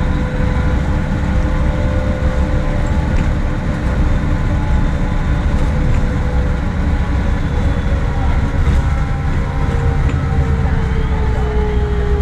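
MAN SL200 city bus under way, heard from inside the cabin: a deep engine rumble with a steady gearbox whine from its 4-speed Voith automatic transmission. The whine drops in pitch near the end as the bus eases off.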